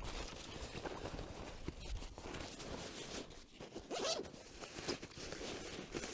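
A zipper being pulled in several rasping strokes, with rustling of gear, the sharpest stroke about four seconds in.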